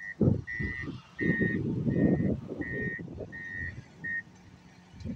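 Bulldozer reversing alarm beeping in short, evenly spaced beeps, about one and a half a second, stopping about four seconds in. Under it are louder, irregular low rumbling bursts.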